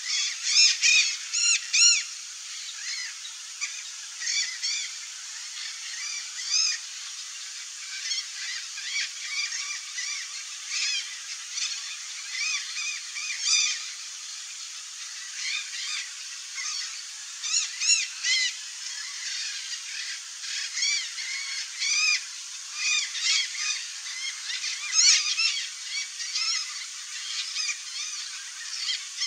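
Blue-and-yellow macaws calling: a long run of short, repeated squawks, at times several a second, loudest near the start.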